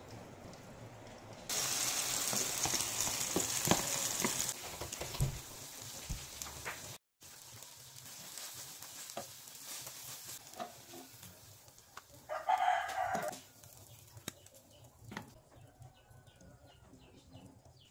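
Cabbage-and-egg fritters sizzling in hot oil in a frying pan, loudest for a few seconds near the start, with light clicks of a spoon. About two-thirds in, a short loud call cuts through.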